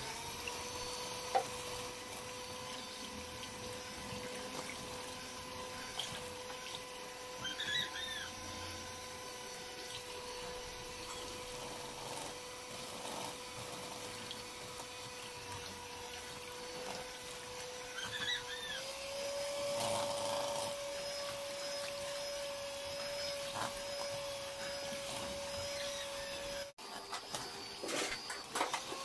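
Electric hand mixer running steadily, its beaters whirring through a runny egg-and-milk batter in a stainless steel bowl, with a steady motor whine whose pitch steps up slightly about two-thirds of the way through.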